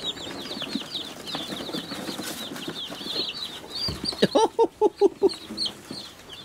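A box of day-old Meat King broiler chicks cheeping constantly, many short falling high-pitched peeps overlapping. A little past four seconds in, a quick run of about six louder, lower squeaks cuts across them.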